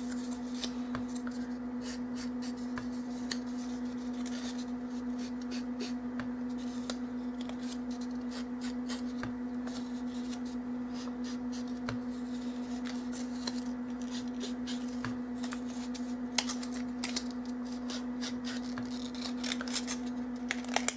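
Foam ink dauber dabbing along the edges of a paper strip, making faint irregular scratchy taps and paper rustles, over a steady low hum.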